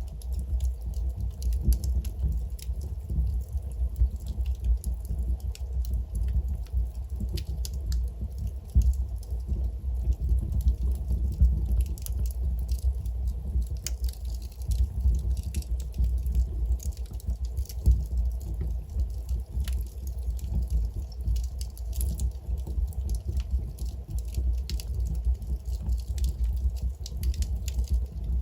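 Wood fire in a fireplace crackling, with irregular sharp pops and snaps over a steady low rumble of burning logs.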